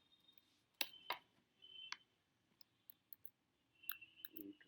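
Sparse, irregular clicks of a computer keyboard being typed on slowly, about ten keystrokes spread across the few seconds, some in quick pairs.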